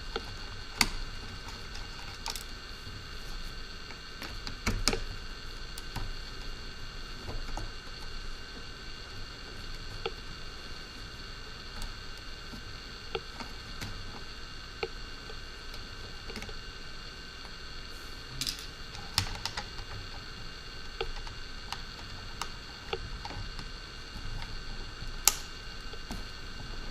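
Scattered small clicks and taps of a screwdriver and tiny screws against a drone's plastic shell as the last shell screws are backed out, a few louder taps among them, over a steady faint electrical whine.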